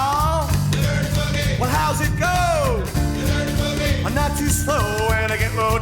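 Background music: a rock and roll song with a singer over a band with a steady beat.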